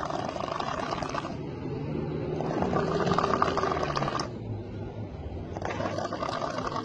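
A person snoring heavily, a rasping, rattling snore that swells and eases with each breath, about one breath every three seconds.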